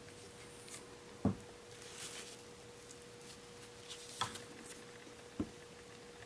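Handling noise as a doll is fitted into a clear plastic doll stand: three soft plastic knocks and clicks (the loudest about a second in, the others near the end) with light rustling between, over a faint steady hum.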